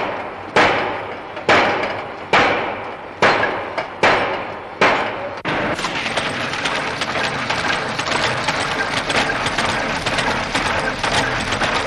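Sugar-factory machinery: six heavy strikes a little under a second apart, each dying away. About five and a half seconds in, they give way to the steady din of belt-and-pulley driven machinery running.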